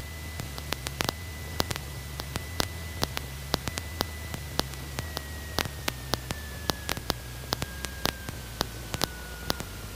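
Crackling static from an old recording setup, with sharp clicks several times a second over a steady low drone of the Cessna 150's engine and cabin noise. A thin high whine holds steady, then slowly falls in pitch over the second half.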